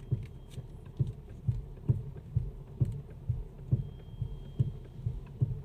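Mercedes-Benz GL350 front end giving a steady series of dull low knocks, about two a second, as the steering is turned from side to side. The knocking comes from worn steering rack mounting bushings that no longer cushion the rack.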